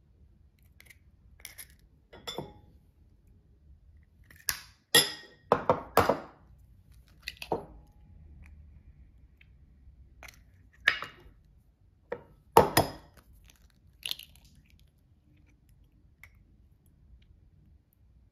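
Eggs being cracked and separated by hand: sharp taps and clinks of eggshell against ceramic bowls, coming irregularly, with louder clusters about five seconds in and again about twelve seconds in.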